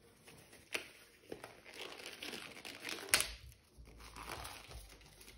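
Thin disposable gloves being pulled on: a crinkling rustle, with a few sharp snaps, the loudest about three seconds in.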